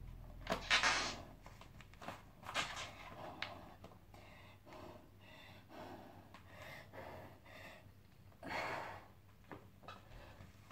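A person's heavy breathing through the nose while moving through yoga poses: several forceful exhales, the loudest about a second in and another near the end, with a few light knocks in between.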